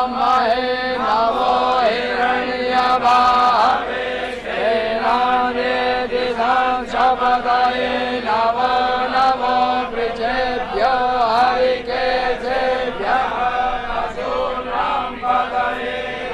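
Hindu mantra chanting by voices in a continuous, melodic recitation over a steady held drone tone.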